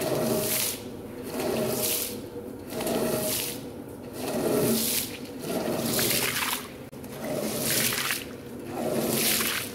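Floor squeegee pushed in repeated strokes across a soaked rug, forcing water and foam out of the pile and across wet tiles. About seven even strokes, each a rush of water lasting under a second.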